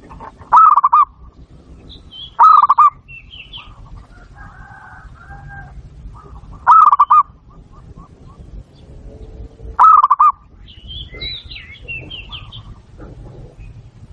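Zebra dove (perkutut) cooing: four loud, short trilling coos about half a second each, spaced a few seconds apart. Fainter high chirps of other small birds sound between them.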